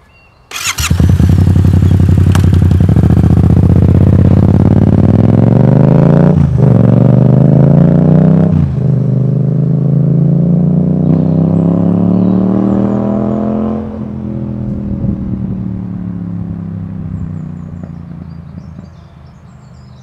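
Yamaha MT-07's 689 cc parallel-twin engine breathing through an Akrapovic exhaust with the baffle (dB killer) removed. It starts up suddenly about half a second in, then pulls away hard, rising in pitch with two sharp gear changes. It holds its pitch, then fades away over the last few seconds as the bike rides off.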